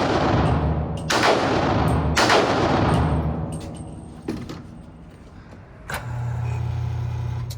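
Two gunshots about a second apart, each followed by a long echoing ring-out in the range. A steady low hum starts near the end.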